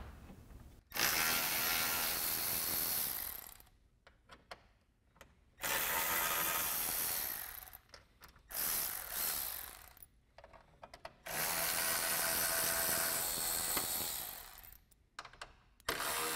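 Cordless electric ratchet with a 10 mm socket spinning out bolts. It runs in about five bursts of one to three and a half seconds, with short pauses and a few light clicks in between.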